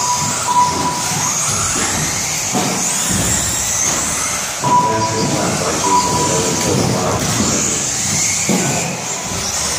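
Electric 4wd RC buggies running on an indoor carpet track, a high motor whine rising and falling as they speed up and slow down. A few short steady electronic beeps cut in near the start and twice about halfway through, typical of a lap-timing system marking cars crossing the line.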